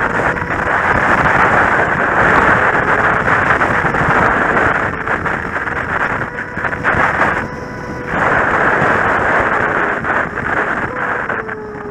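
Kawasaki Z750 motorcycle ridden at speed: heavy wind noise on the camera microphone covers a steady engine hum. The wind eases briefly past the middle, and near the end the engine note begins to drop in pitch.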